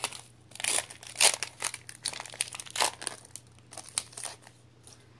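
Foil wrapper of a Pokémon Evolutions booster pack crinkling and tearing as it is pulled open, an irregular run of crackles that stops shortly before the end.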